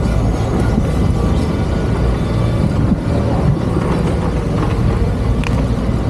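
City street traffic noise: motor vehicles running past, a steady low rumble throughout.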